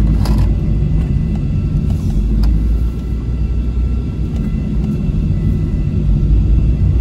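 Inside the cabin of a BMW E46 318i cruising on the road: a steady low rumble of its four-cylinder engine and tyre noise.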